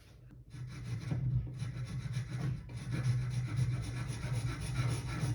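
Hand file rasping back and forth in repeated strokes over a freshly sawn cut end, smoothing it; the strokes start about half a second in.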